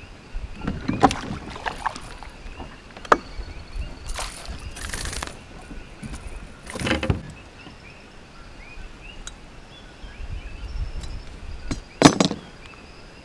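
A hooked peacock bass splashing at the surface as it is reeled up beside a small boat, with sharp knocks and handling noise against the hull. The loudest splash comes near the end, as the fish is swung out of the water.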